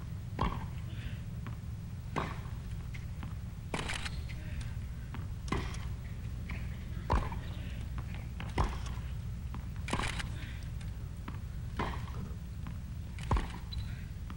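Tennis ball struck back and forth by rackets in a baseline rally: about nine sharp hits, one every second and a half to two seconds, over a steady low hum.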